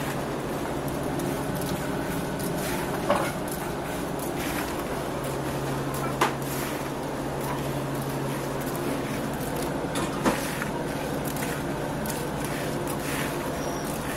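Fried samosas being gathered off a work table and dropped into a plastic crate, with a few sharp knocks about three, six and ten seconds in, over a steady low machine hum.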